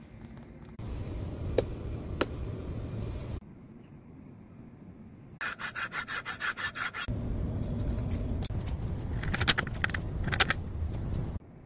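Hand-tool work on a hardwood block in short bursts that cut in and out. A thin-bladed frame saw cuts in quick, even strokes, about seven a second, and a chisel scrapes and pares out the waste between the saw cuts. Two sharp clicks come in the first burst.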